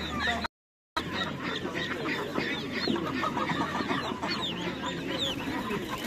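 Many chickens clucking and calling at once, with other poultry mixed in, a busy overlapping chorus of short calls. The sound drops out completely for about half a second near the start.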